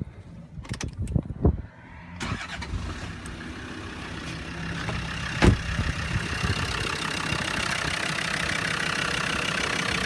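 Land Rover Discovery TD5 five-cylinder turbodiesel engine, fitted with a new crankshaft position sensor, starting about two seconds in after a few knocks and then running steadily at idle. A single sharp thump sounds over the idle a few seconds after the start.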